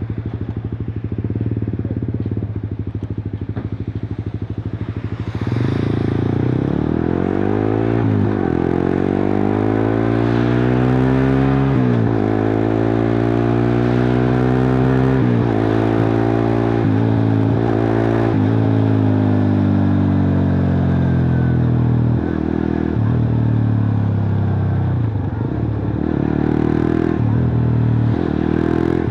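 Suzuki GSX-R150's single-cylinder engine through a cut-open exhaust. It idles steadily for about five seconds, then gets louder, and its pitch rises and falls again and again, with brief breaks, as the bike revs and pulls through the rev range.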